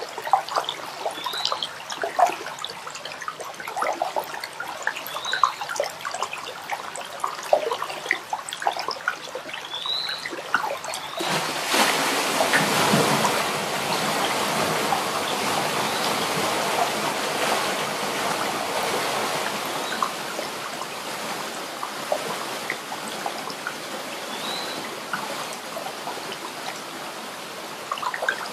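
Water trickling and gurgling along a small irrigation channel, with scattered little plinks. About eleven seconds in, a louder steady rush of water sets in: the channel's flow churning through a Cappa micro-hydro turbine set across it.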